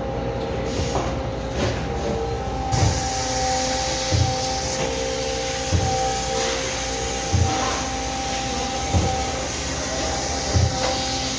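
Water-jet cake-cutting machine running after repair: a steady high-pressure hiss with a low thump about every one and a half seconds. The hiss grows brighter about three seconds in.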